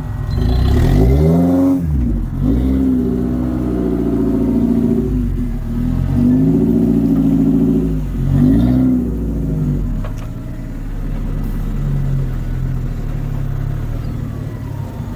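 An off-road four-wheel drive's engine revving hard in repeated bursts, its pitch rising and falling several times, then settling into a lower, steadier run for the last few seconds.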